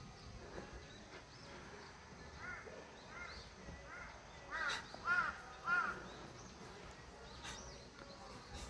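An animal calling: a run of about seven short calls, each rising then falling in pitch, starting a couple of seconds in, with the loudest three a little past halfway.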